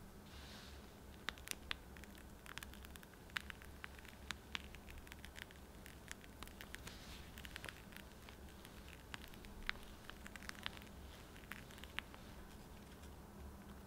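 Whipped cream being piped from a disposable plastic piping bag onto banana slices: faint crinkling of the bag and soft, wet squishing, with many small scattered clicks.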